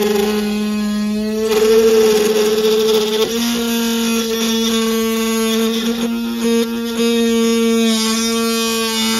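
Tamiya Sport-Tuned 380 DC motor of a 3D-printed mini drill press running at high speed with a steady whine while its small bit drills into a board. The pitch wavers for a couple of seconds early on, then holds steady.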